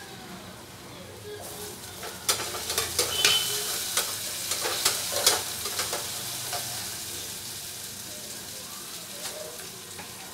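Metal spoon stirring and scraping in a pot of sizzling food. A quick run of sharp spoon clicks against the pot comes about two seconds in and lasts a few seconds, then the frying sizzle carries on steadily and slowly fades.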